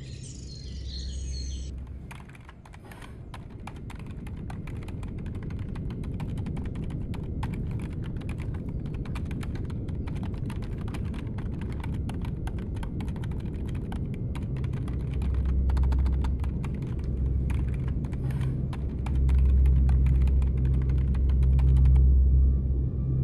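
Rapid, irregular typing on a computer keyboard, with a low hum beneath it that swells louder in the last few seconds.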